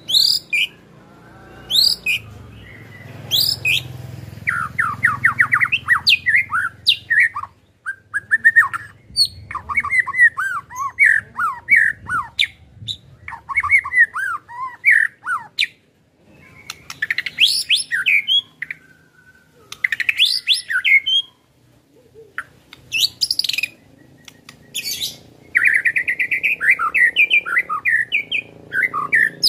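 White-rumped shama (murai batu) singing in bursts: sharp, high whistled notes that slide in pitch, mixed with fast rattling runs of rapid repeated notes, the 'ketrekan' song, with brief pauses between phrases.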